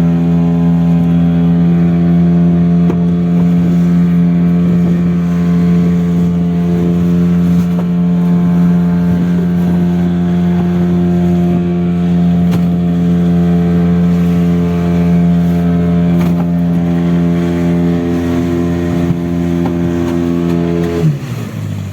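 Fishing boat's engine running at a steady speed, a loud even drone, which drops in pitch and unsettles about a second before the end as the throttle is eased.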